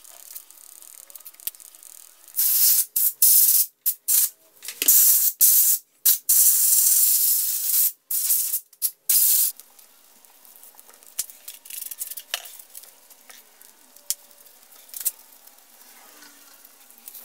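Compressed-air blow gun on an air hose blasting grime off a motorcycle engine's cases. It hisses loudly in a string of blasts, some short and some held over a second, for about seven seconds starting a couple of seconds in, then gives way to faint rubbing and small clicks.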